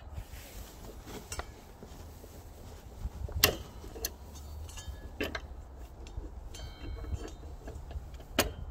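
Sharp metallic clicks and clinks as gloved hands handle a table saw's blade and the fittings in its throat opening, with a brief faint metallic ringing partway through. Four or so separate clinks, the loudest about three and a half seconds in, over a low wind rumble on the microphone.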